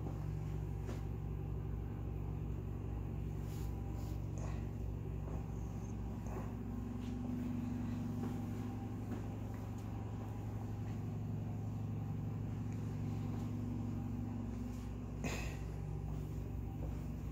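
Steady low machine hum that stays even throughout, with a sharp click about fifteen seconds in.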